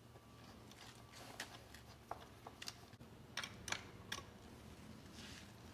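Faint, scattered clicks and ticks of a hand screwdriver and small screws as the screws are hand-tightened into a metal door strike plate.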